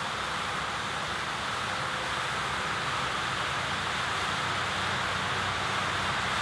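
Steady hiss of a heap of ammonium dichromate burning as it decomposes, growing slightly louder, over a faint low hum.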